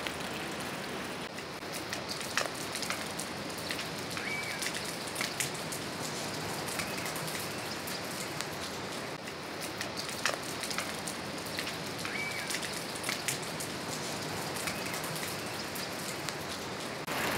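Steady rushing of the Mahakali river in the valley below, an even wash of water noise, with a few short high chirps and small clicks scattered through it.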